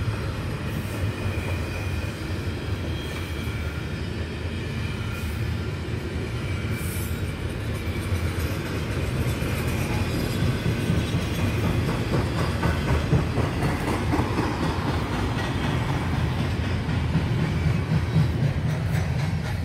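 CN intermodal freight train's double-stack container well cars rolling past, a steady rumble of steel wheels on rail that grows slightly louder in the second half.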